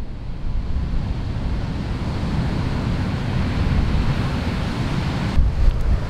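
Ocean surf with wind buffeting the microphone: a steady rush of noise over a heavy low rumble.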